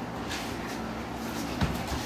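Boxing sparring: a few short soft thuds and scuffs from gloved punches and footwork on the ring canvas, the heaviest thud about one and a half seconds in, over a steady low hum.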